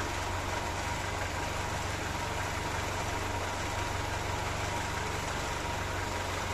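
Carburetted Mercedes-Benz M102 1998 cc four-cylinder engine idling steadily after warming up.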